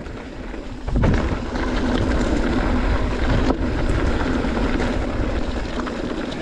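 Mountain bike riding fast down a trail: wind rushing over the microphone and tyres rumbling and rattling over the trail surface, getting louder about a second in as speed picks up, with an occasional sharp knock.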